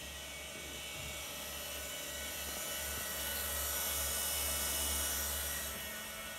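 Steady buzzing drone of an interactive sound installation, dense with hiss and many held tones, starting abruptly, swelling in the middle and easing near the end.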